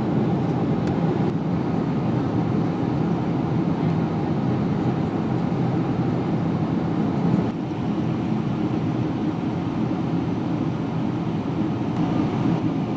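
Steady cabin noise of a Boeing 777-200 in flight, heard inside the cabin: a low, even drone of the engines and the air rushing past the fuselage. The level dips slightly about seven and a half seconds in.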